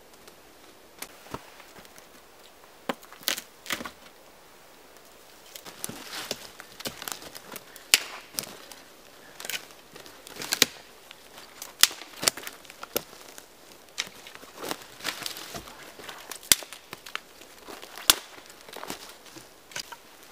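Footsteps through dry forest litter, with irregular sharp cracks of dry twigs and branches snapping and rustling brush. The cracks start about a second in and come thicker from about halfway.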